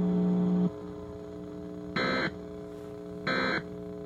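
Emergency Alert System end-of-message code (SAME "NNNN" data bursts) marking the close of the alert: two short, identical, shrill digital squawks about 1.3 s apart. Under them runs a low, steady buzz that is loud for the first half second or so, then drops to a quieter hum.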